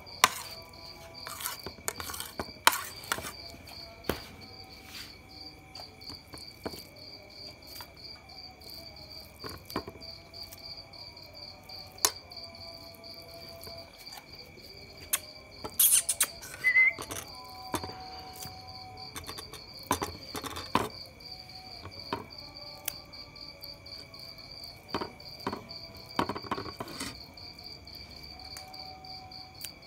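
A pit bull eating chicken and rice from a steel bowl, making scattered sharp clicks and knocks against the bowl, with a cluster of them a little past halfway. Under it runs a steady, high insect trill.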